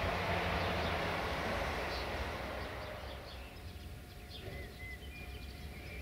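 Outdoor ambience: a broad rushing noise that fades away over the first three seconds, over a steady low rumble, with small birds chirping in the second half.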